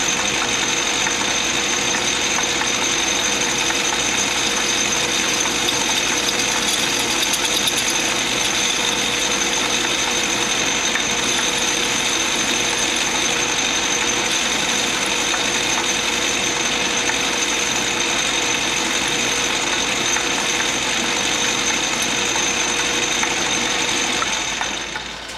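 Small metal lathe running steadily with a high whine while parting off a brass part. Near the end the motor is switched off and the sound dies away.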